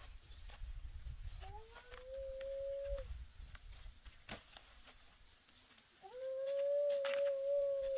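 An animal giving two long, drawn-out howls. Each starts with a short upward glide and then holds one steady pitch; the second is longer and louder. Light knocks sound between them.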